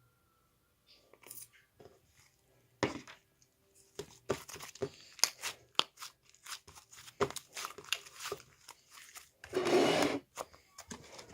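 Irregular crinkling, crunching and tearing handling noises, like packaging or material being worked by hand, with a louder, longer rustle about ten seconds in.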